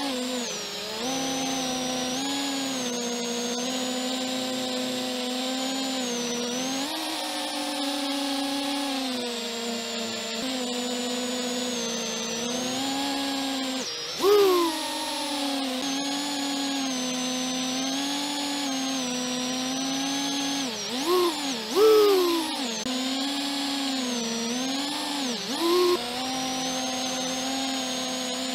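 Electric motors and propellers of a small FPV quadcopter running with a steady whine, the pitch rising and falling with the throttle. Sharp surges and dips in pitch and loudness come once about halfway through and several times between about 21 and 26 seconds in.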